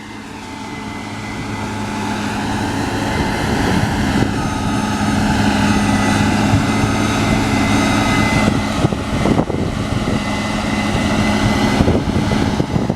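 Case IH Axial-Flow combine running as it threshes wheat: a steady diesel drone that grows louder over the first several seconds, then holds.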